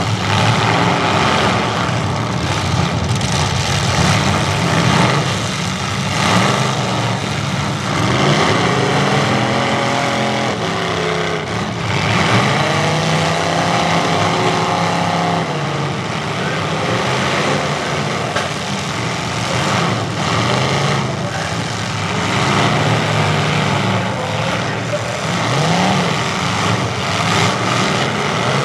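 Several demolition derby trucks' engines running loud together, with engines repeatedly revved up and back down.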